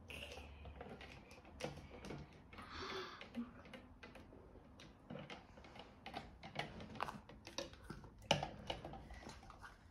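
Faint, irregular clicks and taps of a plastic Barbie doll knocking against its clear plastic tube of water as it is dunked and lifted, with a short splashy hiss about three seconds in.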